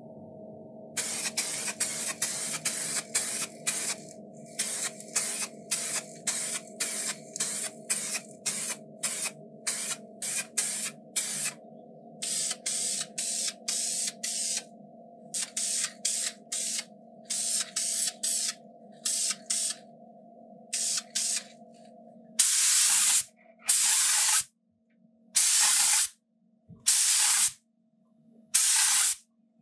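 Paint being sprayed in many short hissing bursts, about two a second, then a few longer, louder bursts near the end. A steady low hum runs underneath and stops about two thirds of the way through.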